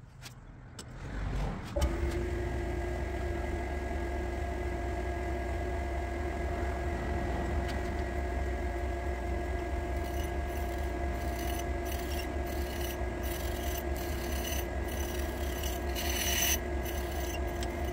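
Delta toolmaker surface grinder started about two seconds in, its motor and wheel running with a steady hum and whine. From about halfway, short repeated hissing scrapes come in as the wheel grinds the workpiece held in the vise.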